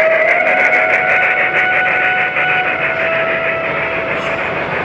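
Sound module of a model steam locomotive giving one long whistle that wavers slightly in pitch and fades near the end, over a fast, even ticking from the running train.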